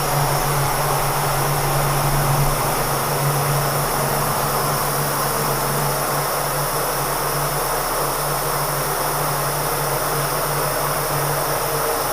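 Kearney & Trecker milling machine running under power feed while a roughing end mill cuts across a metal block: a steady low hum with an even hiss over it.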